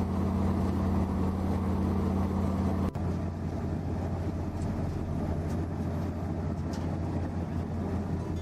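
Heavy diesel earthmoving machinery running with a steady low engine drone. About three seconds in the sound changes abruptly, and a lower, rougher machine drone carries on.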